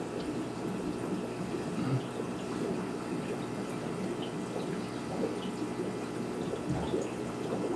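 Steady bubbling and trickling of aquarium water, the constant background of a running fish tank.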